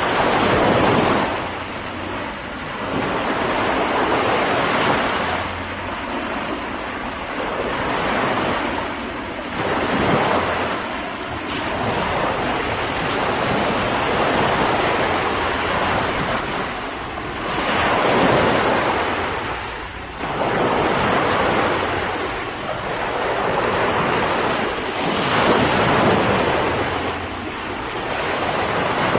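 Waves breaking and washing on a shore, swelling and ebbing every few seconds, with wind in the background.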